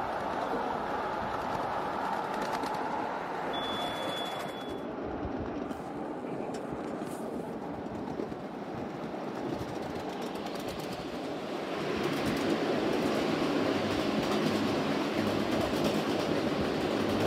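Ride-on 1/8-scale miniature train running along the track, with steady wheel-on-rail clatter. It grows louder about twelve seconds in, as the train runs through a corrugated metal tunnel.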